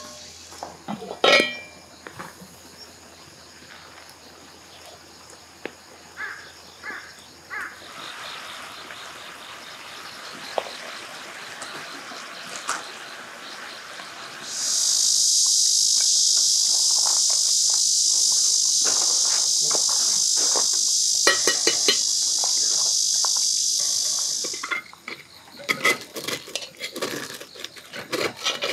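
A loud, steady, high-pitched insect buzz sets in about halfway through and cuts off suddenly some ten seconds later. Around it, a cast iron pot lid clanks as it is lifted off, there are light taps of utensils on cookware, and near the end a spoon scrapes and clicks inside the cast iron rice pot.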